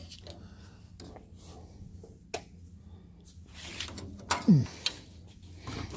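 Bin door of a Cummings Crosa Cut 156-9100 paper shredder cabinet being unlatched and pulled open: scattered light clicks, then a louder burst of clunks with a short falling scrape about four and a half seconds in.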